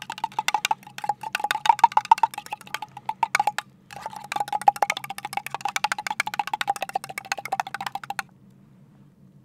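A spoon stirring quickly in an enamel mug, clinking rapidly against its sides with a ringing tone. The stirring pauses briefly about three and a half seconds in, starts again, and stops about eight seconds in.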